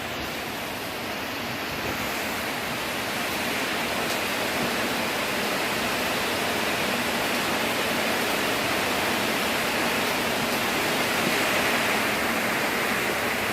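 Heavy rain falling steadily, a dense even hiss that grows a little louder toward the end.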